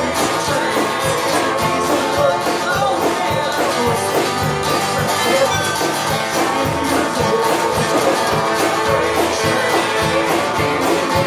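Live roots-rock band playing a song with guitars over a steady beat.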